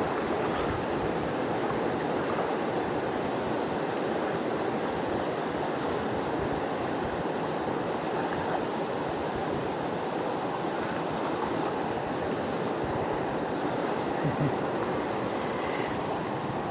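Steady rush of a fast-flowing river, with a few small knocks near the end.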